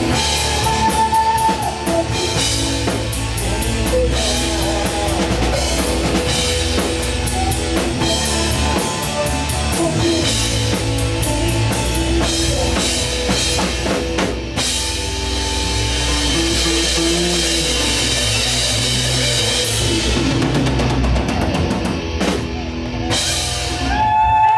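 Live rock band playing: drum kit, electric guitar, bass guitar and keytar. Near the end the steady drumming breaks off into a few separate accented hits as the song winds down.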